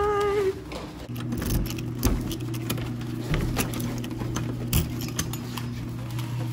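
Keys jingling and a door lock and handle clicking as a wooden door is unlocked and opened, with scattered sharp clicks and rattles. A steady low hum runs underneath from about a second in.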